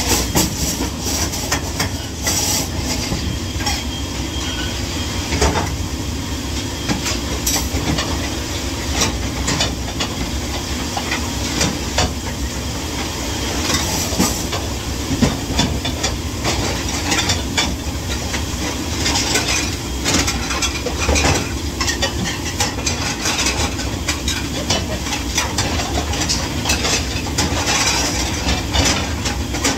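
Steady rumbling, hissing noise, such as running water or a dishwashing machine, with frequent clinks and clatter of dishes and utensils being handled.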